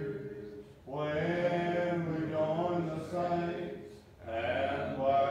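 Church congregation singing a hymn a cappella, with long held notes and short breaks between phrases, about a second in and again about four seconds in.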